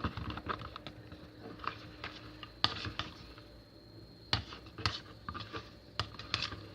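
Homemade slime being mixed by hand, with irregular small sticky clicks and a few sharper snaps; the slime is just starting to thicken to the right consistency.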